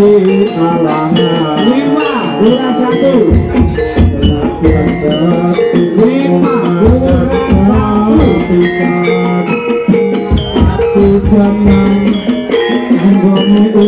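Loud traditional Javanese gamelan-style music accompanying tiban: hand drums whose pitch bends up and down, struck over steady held notes from pitched percussion.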